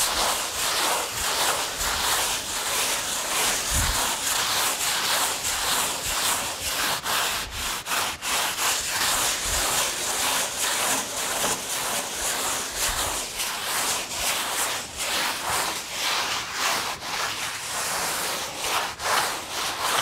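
A hand foam rasp, a board with a very coarse grit face and a handle, scraping back and forth over styrofoam (expanded polystyrene) insulation board in repeated strokes. It is shaving down the high spots and joints of the foam to a smooth, level surface.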